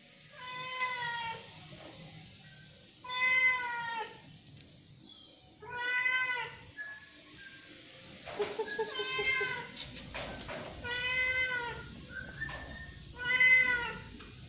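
A domestic cat meowing repeatedly: six long, drawn-out meows, about one every two seconds, each rising and then falling in pitch.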